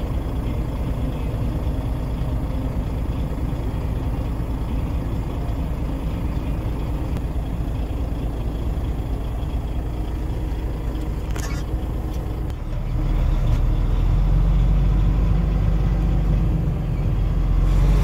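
Heavy diesel engine running steadily with a low rumble. About two-thirds of the way in it gets louder and deeper.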